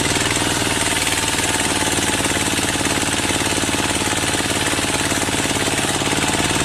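Biomass briquette machine running, a loud, steady, fast and even mechanical pulsing over a low engine-like hum.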